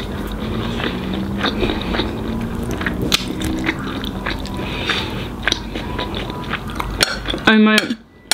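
Close-up eating sounds: chewing, with a metal spoon scooping and clicking against a plate, over a low steady hum. A short spoken word comes near the end.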